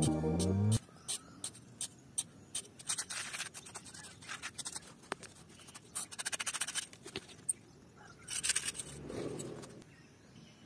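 A small metal hand tool scraping and scratching through dry sandy soil in irregular clusters of short strokes. Background music cuts off under a second in.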